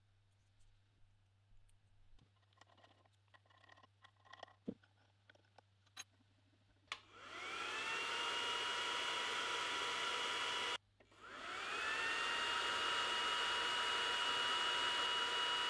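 A few light clicks of handling, then the xTool D1 Pro 20W laser engraver's fan spins up with a rising whine that settles into a steady whirring hiss, about halfway in. It cuts off suddenly, then spins up again and runs steadily.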